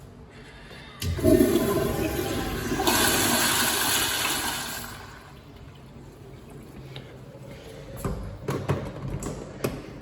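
Toilet flushing: a sharp click about a second in, then a loud rush of water for about four seconds that fades into a quieter flow. Several sharp knocks come near the end.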